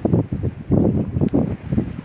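Wind buffeting the microphone, an uneven gusting rumble that rises and falls several times a second.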